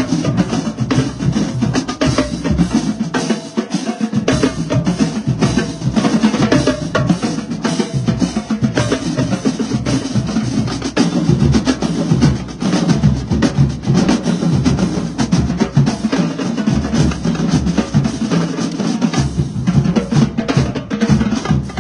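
Marching band drumline playing a cadence together: snare drums, multi-tenor drums and bass drums in dense, unbroken strokes. The deepest bass notes drop out for a moment about four seconds in and again near the end.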